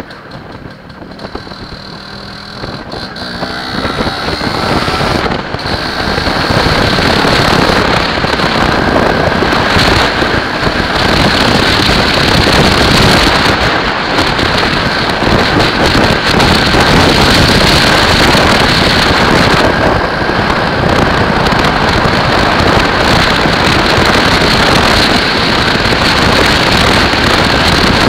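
MZ ETZ 301's single-cylinder two-stroke engine running as the motorcycle is ridden along the road, mixed with wind rush on the camera microphone. It grows louder over the first five or six seconds, then holds steady.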